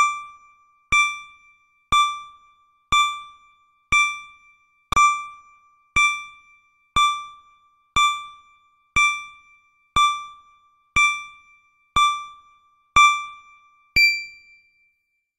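Countdown timer beeping once a second: fifteen short electronic dings, each fading quickly, the last one higher and ringing a little longer to mark zero.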